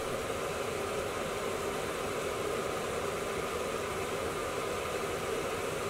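Curry gravy sizzling steadily in a pan over a high gas flame as it reduces and caramelises.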